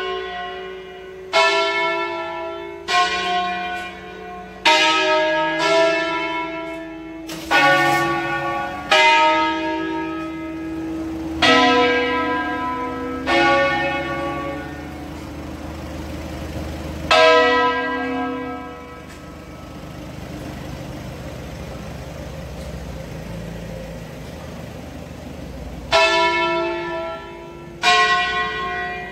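A ring of five church bells in B, swung mouth-up in the belfry and striking one after another in a melodic sequence, each stroke ringing on. After about eighteen seconds the strokes stop for several seconds while the hum dies away, then resume near the end.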